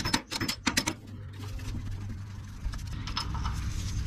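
Pliers working a cotter pin and washer off a shock absorber's upper mounting stud: a quick run of sharp metal clicks in the first second, then a few faint ticks, over a steady low hum.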